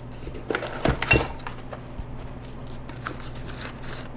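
Metal parts of a dual monitor mount clinking and knocking together as they are handled and lifted out of their box, with a cluster of clinks about a second in, then lighter scattered ticks.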